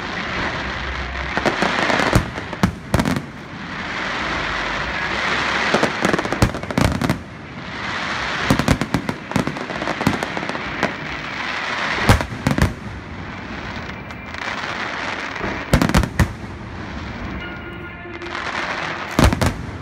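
Aerial fireworks display: repeated sharp bangs of bursting shells, often two in quick succession, over a dense crackling hiss that swells and fades as rockets rise and shells open.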